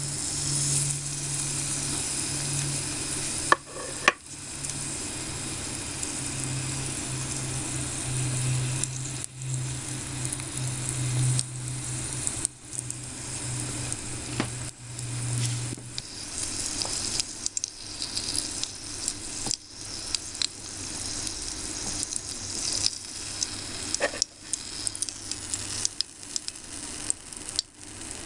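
A breaded minced-meat cutlet (menchi katsu) deep-frying in a small pan of hot oil: a steady sizzle with many small crackles and pops. A low hum runs under it until about halfway through.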